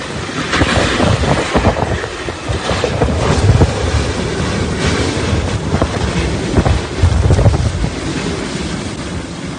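Hurricane-force wind gusting hard against the microphone, with driving rain hissing underneath; the rumble swells and eases in gusts.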